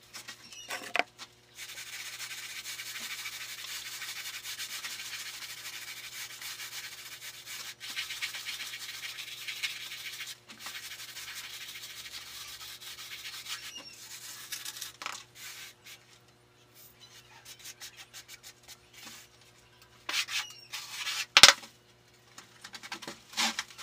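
A hand plastering tool rubbing and scraping over cement plaster in a long, steady run of strokes, broken briefly twice. It stops about two-thirds of the way through, and a few sharp knocks and clicks follow near the end.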